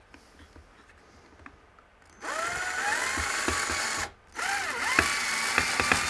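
18-volt cordless drill/driver running in two short bursts, about two seconds each, its motor whine rising in pitch as it spins up, with a few sharp clicks in the second burst. It is driving a small screw that will not go in cleanly and is close to stripping.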